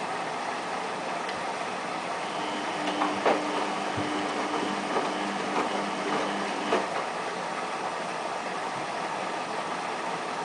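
Samsung WF8804RPA front-loading washing machine during its first rinse: a steady running noise, with a low hum and several sharp knocks for a few seconds in the middle.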